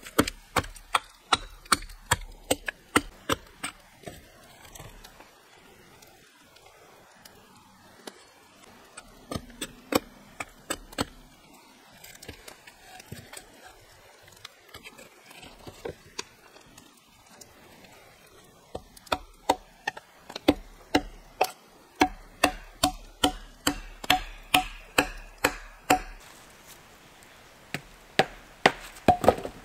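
A hand tool striking wood in runs of quick, even blows, about three a second, with pauses between the runs.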